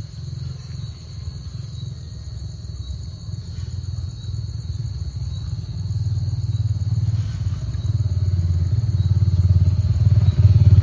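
An engine running with a low, even throb that grows steadily louder. Insects trill in a steady high tone throughout.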